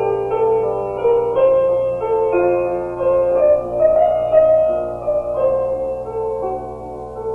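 Solo piano playing a slow, gentle melody of held notes, part of a short film's score.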